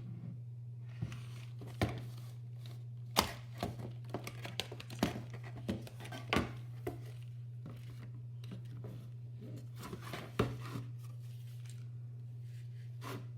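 Scattered sharp clicks, taps and rustles from hard plastic keyboard parts being handled during the repair of a mechanical keyboard, over a steady low hum.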